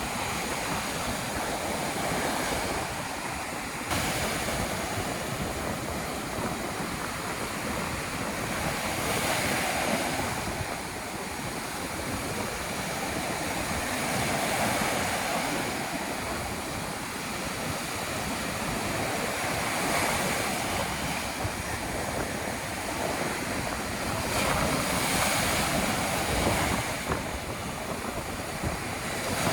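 Ocean surf breaking and washing on a beach in stormy, windy weather, with wind buffeting the microphone. The rushing sound swells and falls every few seconds as waves come in.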